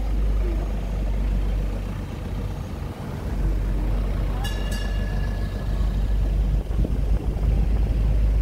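Tourist tram running through city streets: a steady low rumble of the ride, with a pair of clicks and a short high tone about four and a half seconds in.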